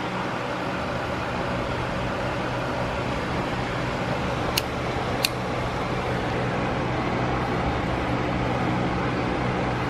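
Steady mechanical hum with a low drone, and two sharp clicks about a second apart midway.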